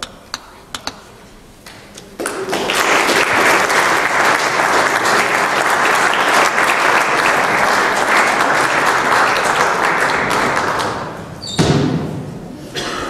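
Audience applauding at the end of a lecture in a large hall, starting about two seconds in and dying away near the end.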